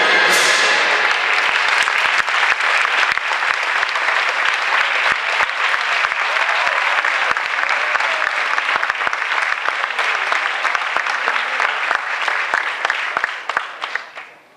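Audience clapping: it starts just as the music stops and dies away near the end.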